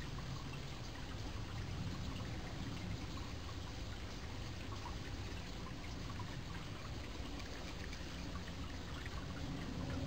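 Mountain stream running: a steady rush and trickle of flowing water.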